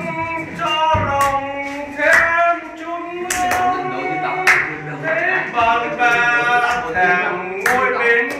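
A voice singing a slow song unaccompanied, holding long gliding notes, with hand claps from the listeners keeping loose time.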